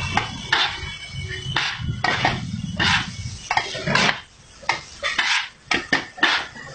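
Flat metal spatulas chopping kothu parotta on an iron griddle: sharp metal-on-metal strikes in a rhythm, about two a second, some in quick pairs.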